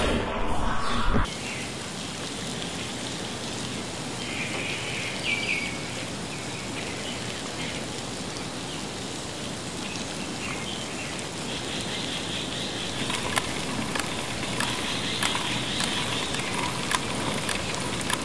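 Steady outdoor ambience, an even rain-like hiss, opening with a short loud noisy burst that cuts off about a second in. A higher hiss swells in twice, and faint scattered ticks come through in the second half.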